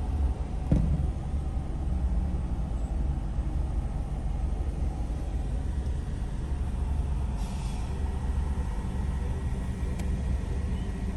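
Car driving through city streets: a steady low rumble of engine and tyres, with a short knock about a second in and a brief hiss about seven and a half seconds in.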